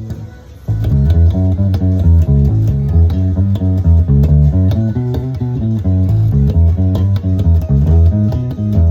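Fender JMJ Road Worn Mustang bass being played: a busy line of quick plucked notes that starts about half a second in.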